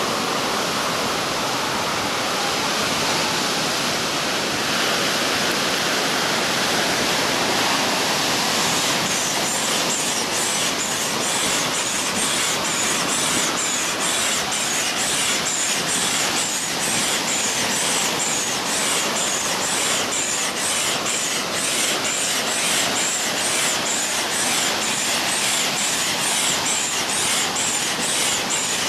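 Air pump blowing air through a hose into an inflatable vinyl wolf's leg chamber as it fills: a steady rushing hiss. From about nine seconds in, a regular pulsing runs through the hiss.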